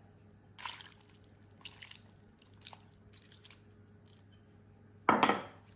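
A little water poured from a container into a pot of meat and fish: a few soft trickles and drips, then a louder burst of noise about five seconds in.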